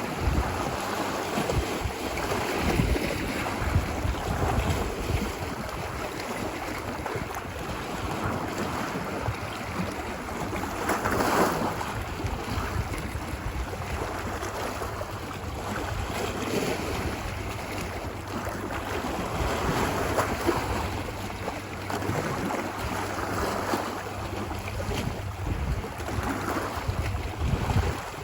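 Ocean surf washing onto a beach, a continuous hiss of water that swells and eases with each wave, one wave breaking louder about eleven seconds in, with wind rumble on the microphone.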